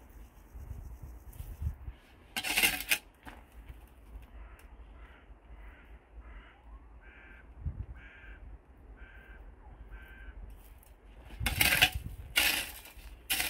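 Metal shovel blade scraping and striking through dry grass and grit on a grave plot: one stroke about two seconds in and a cluster of three near the end. Between them a bird calls about ten times in a row, evenly spaced.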